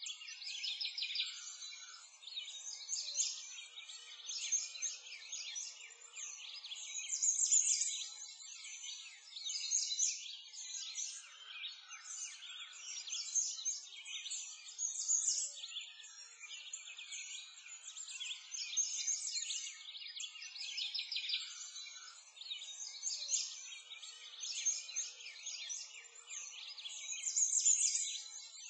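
A dense chorus of small songbirds chirping and twittering without pause.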